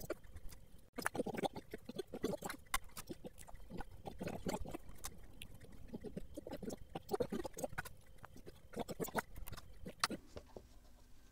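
Sped-up sound of small plastic model kit parts being handled and fitted by hand: a quick jumble of clicks and scrapes in bursts.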